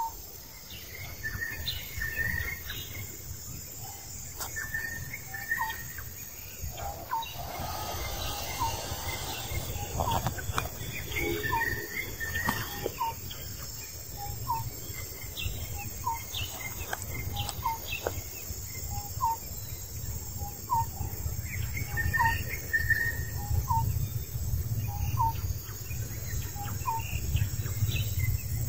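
Outdoor bird and insect ambience: a bird repeats a short rising call about once a second while other birds chirp, over a steady high insect hiss and a low rumble that grows louder in the second half.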